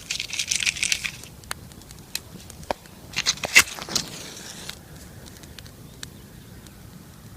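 Dry tinder and kindling of a small campfire being handled and relit. About a second of rustling at the start, then scattered sharp crackles, with a loud cluster a little past three seconds followed by a brief hiss.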